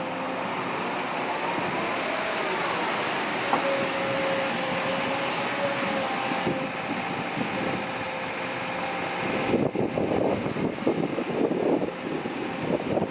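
Heavy earthmoving machinery running, its diesel engine steady with a constant whine. About two-thirds of the way in, a rougher, uneven clattering sets in and gets louder.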